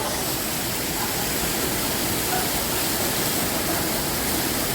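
Waterfall and cascading river water rushing: a steady, even noise that does not change.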